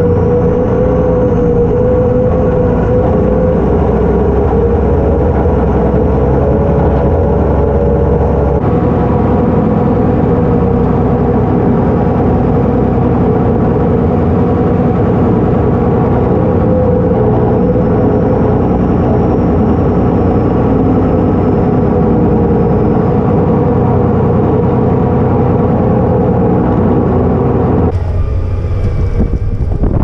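Case IH Puma 240 tractor's six-cylinder diesel engine running steadily under load while pulling a plough. The sound changes abruptly near the end, turning quieter and thinner.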